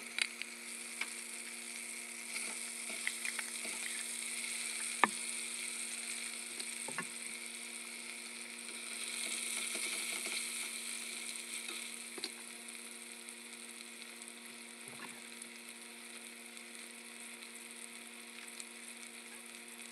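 Chicken pieces browning in shallow oil in a stainless steel pot, a steady sizzle. A few sharp clicks of metal tongs against the pot come as the pieces are turned.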